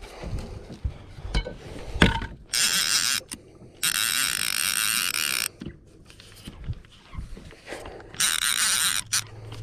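Trolling reel's drag buzzing in three bursts as a hooked lake trout pulls line off the spool, the middle one the longest at about a second and a half. A sharp knock comes just before the first burst.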